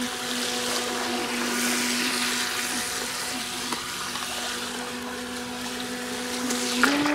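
Small RC jet boat's brushed electric motor whining steadily under throttle, with the hiss of its water jet and spray. Near the end the whine rises briefly, then begins to fall away as the throttle is let off.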